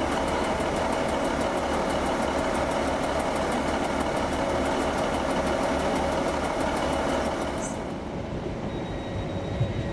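A railway train's engine running steadily with a fast, even pulse, and a change about eight seconds in when the higher part of the sound drops away.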